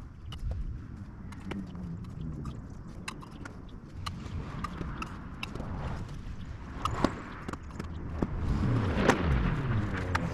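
A motor running, its pitch sliding up and down and falling away near the end, with scattered clicks and knocks.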